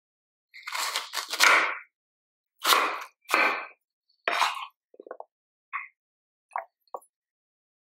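Cut raw potato pieces being handled on a wooden board and dropped one by one into a ceramic pot: a series of separate knocks and scrapes, louder in the first half, with smaller taps near the end.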